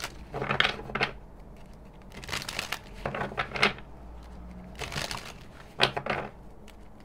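A deck of tarot cards being shuffled by hand, in five or six short rustling bursts.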